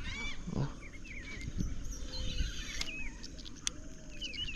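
Wild birds calling around a marsh: many short chirps and twitters, rising and falling, coming in quick succession, with a few soft low knocks underneath.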